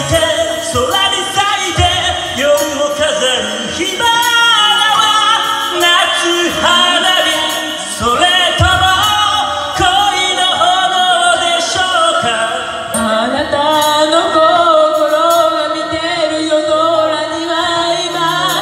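A man singing a J-pop cover into a microphone over a recorded backing track; near the end a woman's voice comes in to take over the duet.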